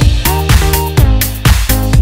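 Background electronic dance music with a steady beat, about two beats a second, under held synth chords.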